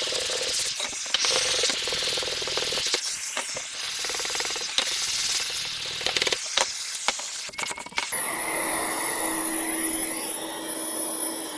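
A sandpaper-faced, vacuum-connected hand sanding block rubbing back and forth on a wooden board, over the hiss of a shop vacuum drawing air through the block. A few knocks are heard. About eight seconds in the rubbing stops and the vacuum's steady whine is left.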